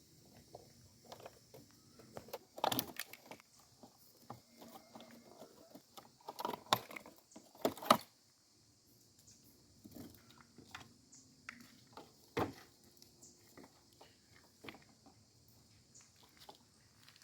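Scattered knocks, clicks and light clanks of hard objects being handled. The loudest come as a cluster about two and a half seconds in, another around six to eight seconds in, and a single knock a little past twelve seconds.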